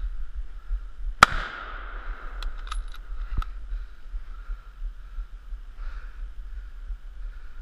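A single hunting rifle shot about a second in, sharp and loud, with a trail that dies away over about a second. A few light metallic clicks follow, then one more sharp click about two seconds after the shot.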